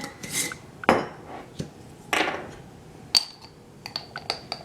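Kitchen utensils clinking: a spoon knocking against a pot and containers while cinnamon is measured in. Two sharp clinks with a short ring, a brief scrape between them, and a quick run of small clinks near the end.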